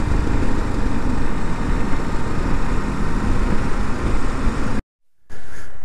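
Riding noise from a Kawasaki KLR dual-sport motorcycle at road speed: the engine running steadily under heavy wind rush on the camera microphone. It cuts off suddenly near the end, and after a brief silence a quieter, steadier background begins.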